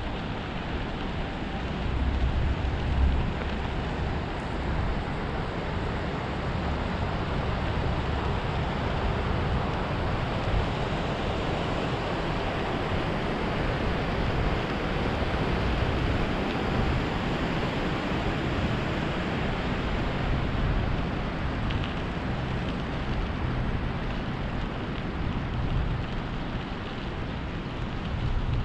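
Steady rushing noise of wind buffeting a head-mounted GoPro's microphone while cycling, with a deep rumble underneath that rises and falls a little.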